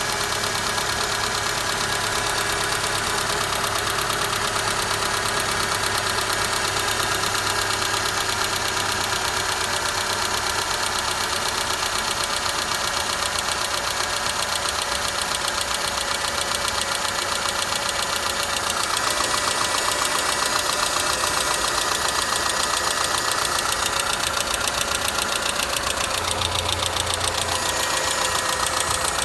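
Renault K4M 1.6-litre 16-valve four-cylinder petrol engine running steadily with a fast, regular knock.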